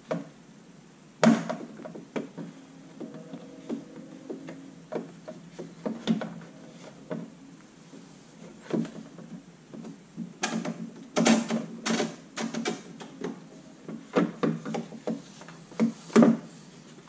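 Sharp plastic clicks and knocks from prying a motorcycle side cover off its pressure clips and handling it: scattered single knocks with quicker clusters, the loudest about a second in and near the end.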